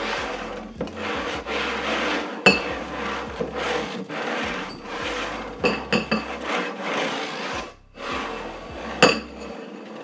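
Two upside-down paper popcorn buckets are slid and shuffled around a tabletop, their rims scraping along the surface in long strokes with short pauses between. A few sharp knocks come in between, the loudest about two and a half seconds in and near the end.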